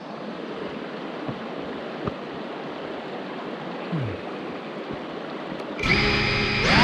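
Steady rush of running water, like a creek, with a couple of faint clicks. About a second before the end, electronic music comes in with a held chord of steady tones.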